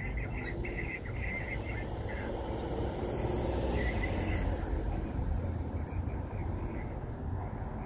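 A pickup truck driving past on the street, its tyre and engine noise swelling to its loudest about three to four seconds in, then fading.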